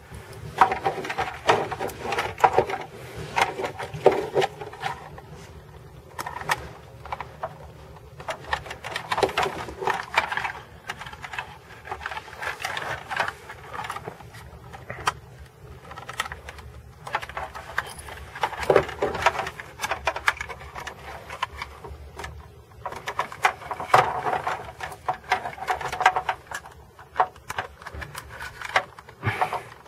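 Irregular clicks, taps and rattles of a hand tool working on the plastic centre console trim of a C5 Corvette as it is pried loose.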